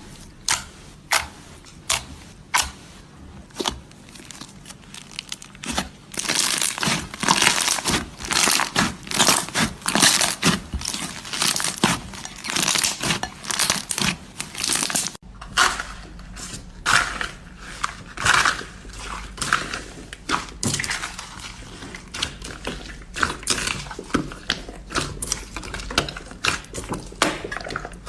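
Slime being squeezed and poked by hand, making sharp clicks and pops. The pops come spaced out at first and then as dense crackling. After an abrupt cut about fifteen seconds in, there are more clicks and crackles over a low steady hum.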